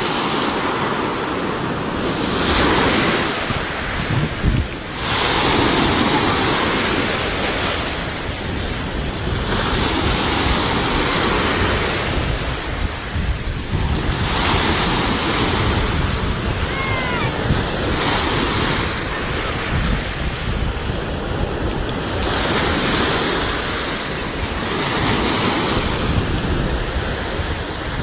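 Heavy surf on a rough sea: waves breaking in a continuous wash, swelling and easing every few seconds as each set crashes.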